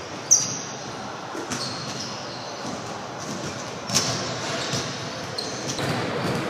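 Sharp, echoing smacks of a racquetball in an enclosed court: a loud one about a third of a second in, a fainter one a little later, and another about four seconds in.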